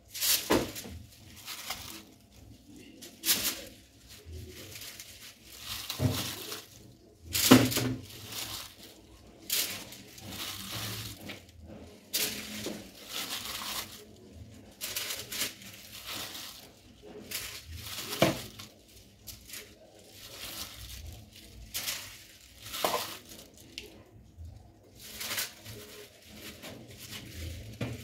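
Marinated chicken pieces being laid one by one onto a foil-lined baking tray: irregular short knocks and foil crinkles every second or two, with the plastic bowl clattering against the tray.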